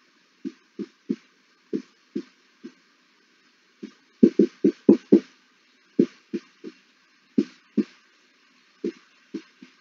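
Dry-erase marker squeaking on a whiteboard as an equation is written: short separate squeaks, one to several a second, with a louder run of quick strokes about four to five seconds in.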